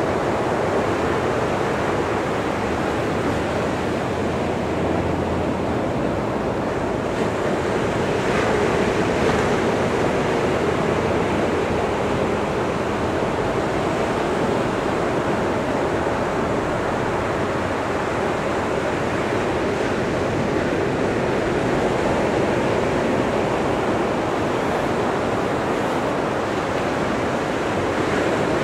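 Surf of small waves breaking and washing up a beach, a steady rushing noise that swells slightly now and then.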